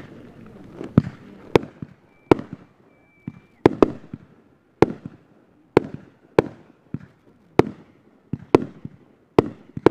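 Aerial fireworks going off: a string of about a dozen sharp bangs, roughly one a second, with crackling after the first few and a brief faint whistle a couple of seconds in.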